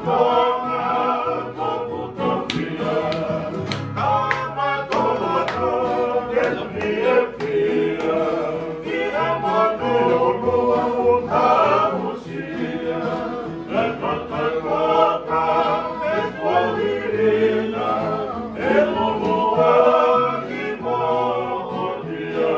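A group singing a Tongan song together, accompanied by strummed acoustic guitars and a ukulele.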